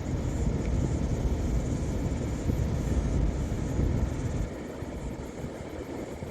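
Wind buffeting the microphone, a heavy low rumble that eases about four and a half seconds in.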